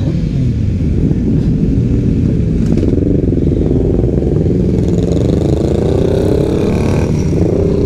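Several motorcycle engines running together, their notes overlapping and their revs rising and falling, climbing higher in the second half.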